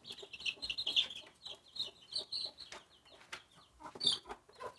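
Baby chicks peeping: a rapid, continuous string of short, high-pitched cheeps, with a few scattered knocks.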